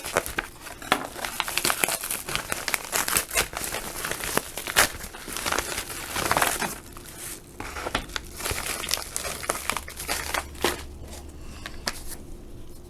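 Package wrapping being slit open and torn by hand, with dense irregular crinkling and rustling that dies down near the end.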